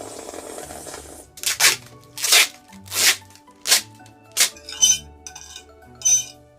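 Fork scraping and clinking on a plate: five sharp, noisy strokes about two-thirds of a second apart, then two lighter ringing clinks. Soft background music plays underneath.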